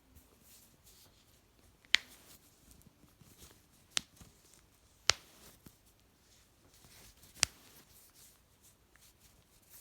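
A person's joints cracking: four sharp pops spread over several seconds, the first about two seconds in, with near quiet between them.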